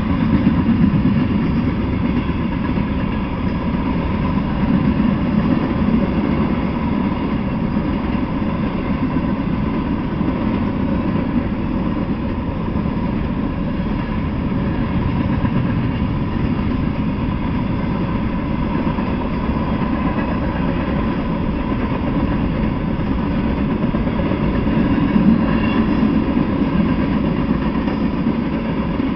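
Freight train of tank cars and covered hoppers rolling past: a steady low rumble of wheels on rails.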